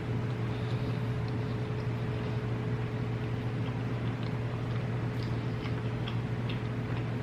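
Steady low hum with a thin, higher steady tone over it, and a few faint, soft clicks scattered through, typical of someone quietly chewing food.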